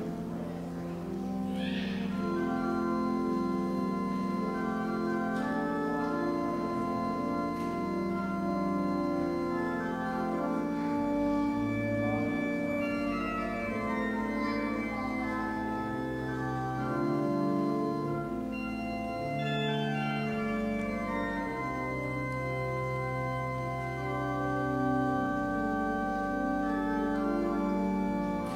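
Church organ playing slow, sustained chords over held low bass notes, with no singing, as instrumental music during communion.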